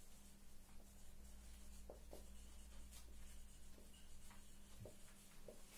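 Faint scratching and ticking of a marker pen writing on a whiteboard, in short irregular strokes over a steady low hum.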